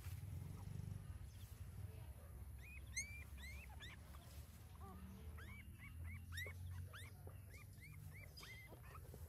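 Nursing puppies squeaking and whimpering: a run of short, high squeaks that starts about a quarter of the way in and comes thick and fast in the second half, over a low steady rumble.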